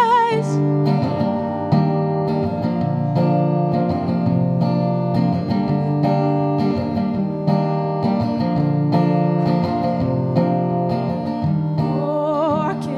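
Acoustic guitar strumming chords through an instrumental break, after a sung note at the start; a voice comes back in near the end.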